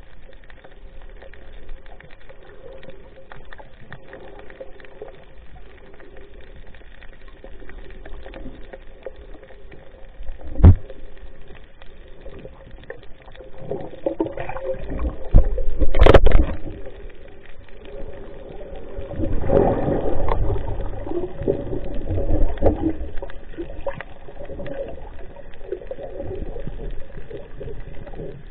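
Muffled water sounds of snorkeling, with gurgling and splashing stretches, a faint steady hum and two sharp knocks, about eleven and sixteen seconds in.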